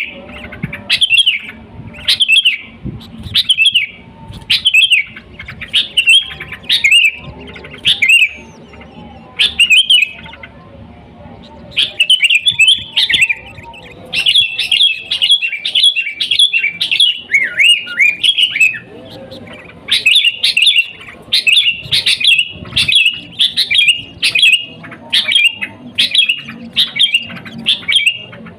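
Sooty-headed bulbul (kutilang) singing: short, bright chirping phrases repeat about once a second. They pause briefly at about a third of the way through, then return as a faster run of overlapping chatter before settling back into the repeated phrases.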